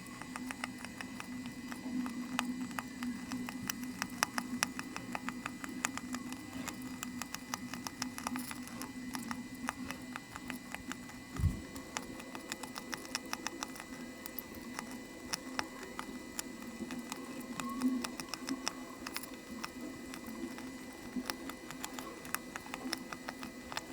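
Many light, irregular plastic clicks and taps as mechanical keyboard parts are handled during assembly. A steady low hum runs underneath, and there is one dull thump about halfway through.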